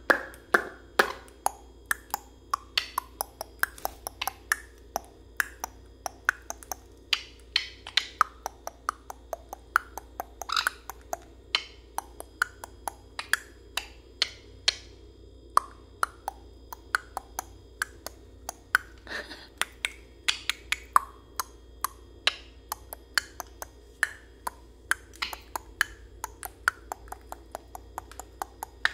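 Sun conure pecking at its food: sharp, irregular beak clicks and taps, a few a second, with a few short chirps mixed in.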